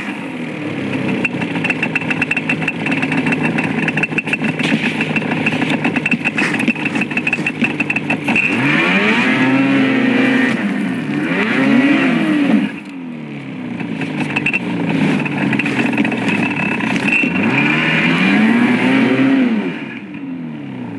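Snowmobile engine running under heavy throttle and revved up and down several times, its pitch rising and falling, as the sled bogs down in deep snow and the track spins, digging down to the dirt until the sled is stuck. It drops off sharply about two-thirds of the way in and again near the end.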